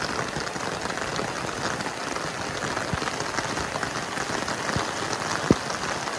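Heavy rain falling, a steady hiss thick with the patter of drops on wet ground and roofs. One sharp tap about five and a half seconds in stands out above it.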